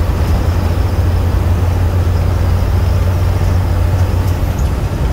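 Detroit Diesel Series 60 12.7-litre inline-six of a Freightliner Columbia truck pulling under acceleration, heard from inside the cab as a steady low drone with road and wind noise.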